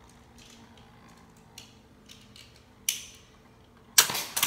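Beyblade spinning top running in a ceramic bowl, with faint light ticks and scrapes and a sharp click near 3 s. About 4 s in, a loud clatter of hard plastic on the ceramic bowl as a second Beyblade and its launcher are brought into the bowl.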